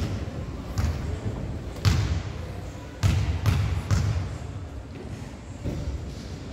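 Basketball bouncing on a gym floor during play: about six thumps at uneven spacing, the loudest bunched around three to four seconds in.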